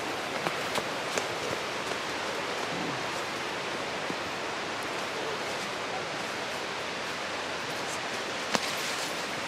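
Steady rushing water from a waterfall or fast stream, an even hiss with a few faint clicks and a sharper click near the end.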